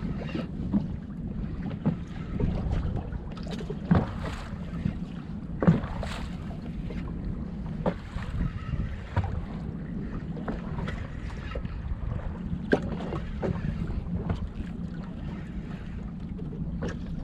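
Wind buffeting the microphone on a small fishing boat at sea, over a steady low rumble, with scattered short knocks and clicks from handling on board.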